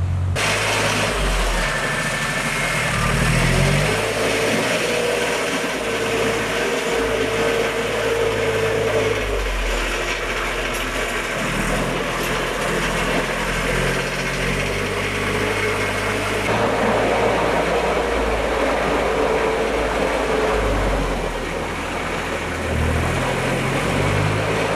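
Engines of off-road vehicles, a four-wheel-drive ambulance and a farm tractor, working along a muddy forest track. The engine note rises and falls as they rev, and the sound changes abruptly about two-thirds of the way through.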